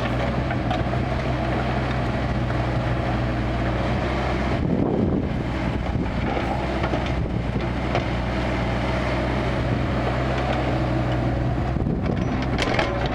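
Kubota KX161-3 compact excavator's diesel engine running steadily, with brief scraping or knocking noises about a third of the way in and near the end.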